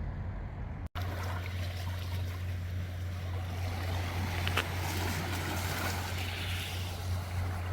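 Sea waves washing onto the shore, a steady rushing wash with a constant low hum underneath. The sound cuts out briefly about a second in before the waves start.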